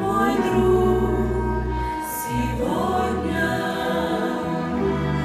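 A song with choral singing over held low bass notes.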